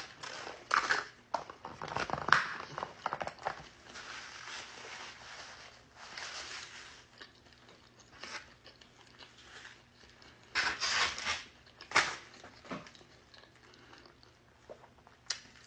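A person biting and chewing crunchy fried chicken close up, in irregular bursts, with some paper rustling.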